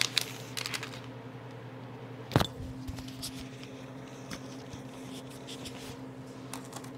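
Sparse rustles and small clicks of a cake's plastic wrapper being handled, with one sharper knock about two and a half seconds in, over a steady low hum.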